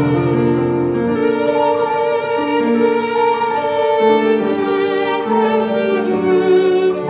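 Slow music for bowed strings: a violin holding long notes with vibrato over lower string parts, changing notes about once a second.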